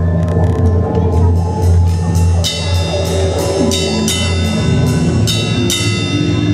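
Gothic rock band playing a song intro live: a sustained low drone under a run of ringing, bell-like struck notes, about three a second, brightest in the middle.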